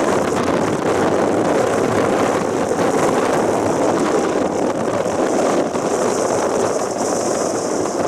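Strong typhoon wind blowing across the microphone, a loud, steady rushing noise.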